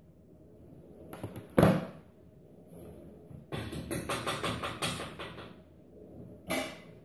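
Kitchen clatter from things being handled at the counter. A loud knock comes about one and a half seconds in, then a quick run of rattling clicks, and another knock near the end.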